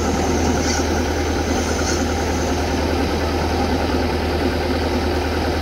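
Combine harvester's diesel engine idling steadily, a low, even hum.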